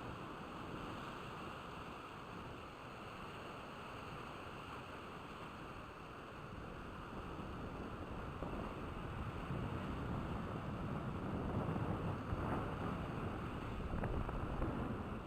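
Steady wind noise on the microphone over the wash of the sea along a rocky shore, growing somewhat louder about halfway through.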